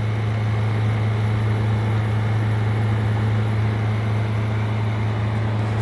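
Steady hum of a portable generator and a 6,000 BTU window air conditioner running together, the generator under the air conditioner's load, with a constant low drone and an even hiss.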